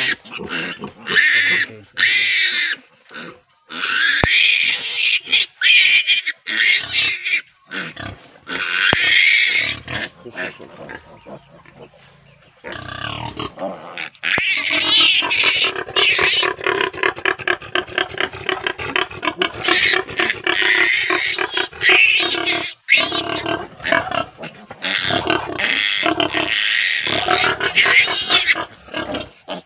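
Day-old piglet squealing shrilly in distress while held down for its needle teeth to be clipped. Separate loud squeals in the first half give way, about halfway through, to a near-continuous pulsing scream.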